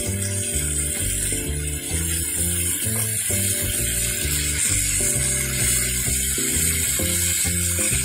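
Background music with notes changing a few times a second, over marinated fish steaks sizzling steadily in a pan of masala.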